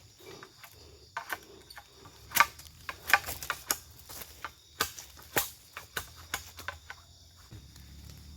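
Irregular sharp clicks and knocks, a dozen or more over several seconds, from wood or bamboo being handled and knocked together while building a shelter. A steady high chirring of insects runs underneath.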